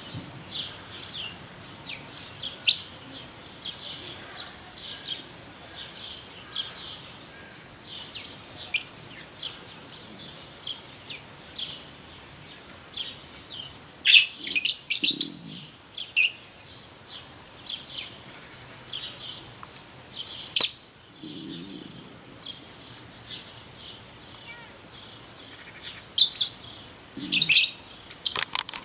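Lovebirds chirping in short, high calls throughout, with louder bursts of rapid shrill chirps a little before halfway, at about two-thirds, and near the end.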